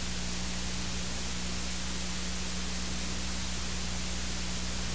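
Steady hiss and static of a blank audio track, with a low steady hum underneath; nothing else was recorded.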